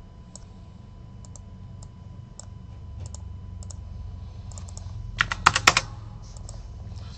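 Typing on a computer keyboard: scattered key clicks, then a quick run of about five louder keystrokes about five seconds in.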